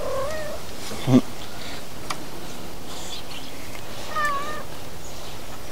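A pet cat meowing: a short wavering call at the start and another about four seconds in.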